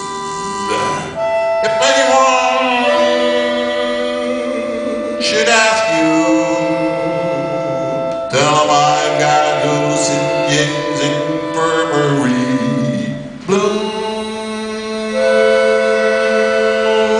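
Concertina playing slow, held chords of steady reed tones, moving to a new chord every few seconds.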